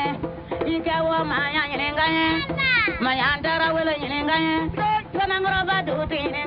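Music from a Malian song: a melody that slides between notes, sung over instrumental backing.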